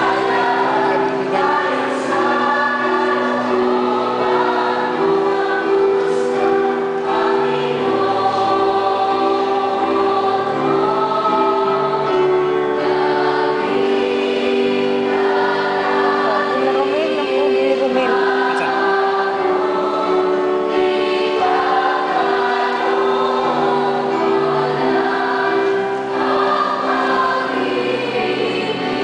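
Church choir singing a hymn in several voice parts, with long held chords that change every few seconds.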